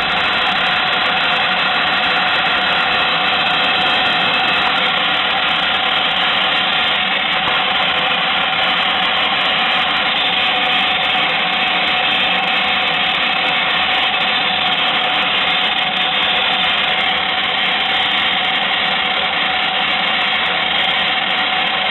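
The small electric motor of a 1960s MFZ Fuchs toy twin-tub washing machine, running steadily with an even whirring whine. Rust on the motor keeps the agitator and spinner turning slower than they should.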